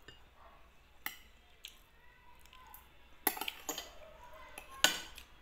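Metal spoon and fork clinking and scraping against a plate during eating: a few sharp clinks, a quick cluster about three seconds in, and the loudest one near the end.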